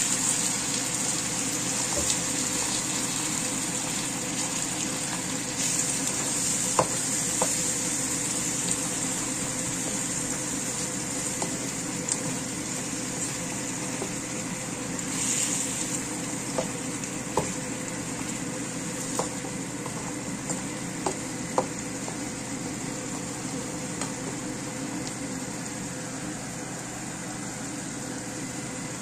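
Fried fish pieces and sliced onion sizzling in sambal sauce in a wok: a steady hiss that eases off slowly, with scattered sharp clicks and a brief louder rush about fifteen seconds in.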